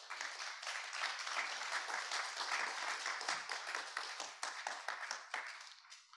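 Audience applauding, a dense clapping that thins and dies away near the end.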